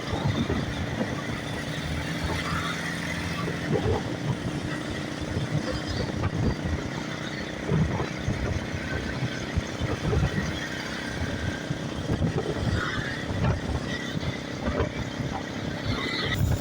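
Roadside traffic: motorcycle and other motor-vehicle engines running and passing, with a steady engine hum for the first few seconds.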